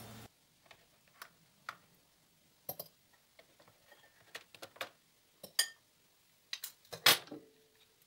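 Scattered light clicks, taps and scrapes of a metal knife and spoon against a plastic egg-cooker container and a ceramic bowl as cooked eggs are lifted out; the loudest knock comes about seven seconds in, followed by a brief ring.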